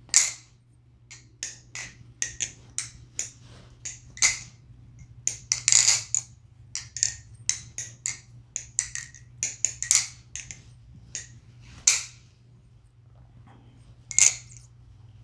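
MachineWise Mayrn Lite balisong being flipped: its raw aluminum handles swing and strike the blade's pins, giving a run of quick, irregular clicks and clacks, with louder clusters around the middle and near the end. A faint steady low hum sits underneath.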